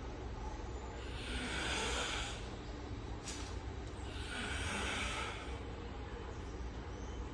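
A sleeping person snoring: two long snores about three seconds apart, with a short sharp click between them.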